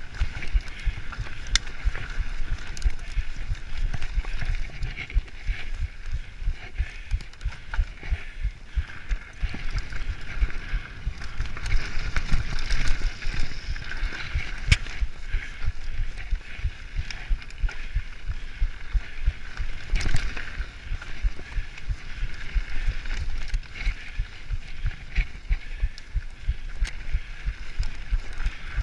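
Mountain bike ridden fast down a rough dirt trail: a constant run of low bumps and rattles as the bike jolts over rocks and ruts, with tyre and wind noise. There are a few sharper knocks, the loudest about twenty seconds in.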